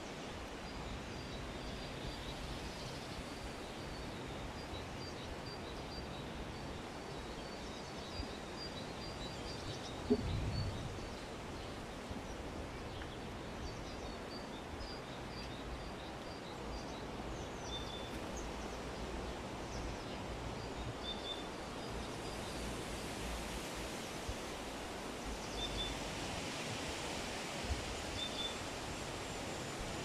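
Outdoor garden ambience: a steady breeze with low wind rumble on the microphone and faint, high bird chirps in quick series. About ten seconds in there is one louder low thump.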